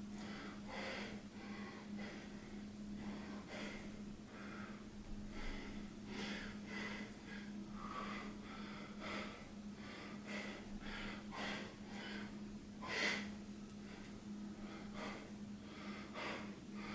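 A person breathing heavily in repeated noisy breaths, laboured because he is sick, with one sharper breath about three-quarters of the way through. A steady low hum runs underneath.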